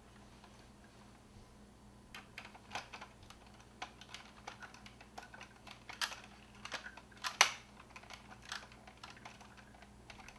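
Scattered light clicks and taps of hard plastic as a Matchbox Veritech toy is handled and screws are driven into its plastic body. The clicks start about two seconds in and come irregularly, the loudest about seven seconds in.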